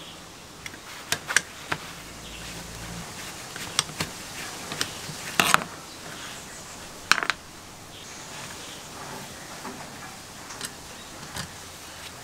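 Spanner and screwdriver clinking on the metal frame of a 1950s Aerite foot tyre pump as the nut on its pedal pivot bolt is undone: scattered sharp metallic clicks and clinks, the loudest about halfway through.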